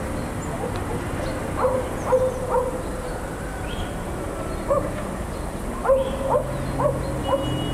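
An animal's short rising yelps, four in quick succession, then a single one, then a run of five more near the end, over a steady background hiss.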